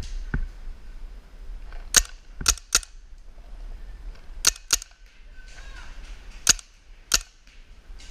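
Paintball marker firing: about seven sharp, loud shots in three short bursts of two or three.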